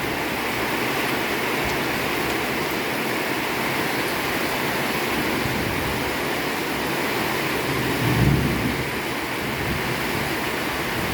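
Heavy rain falling steadily, with a brief low rumble about eight seconds in.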